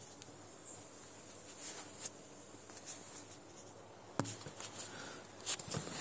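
Handling noise of a phone being moved over a workbench: scattered light clicks and rustles, with a sharp click about four seconds in and a cluster of ticks near the end.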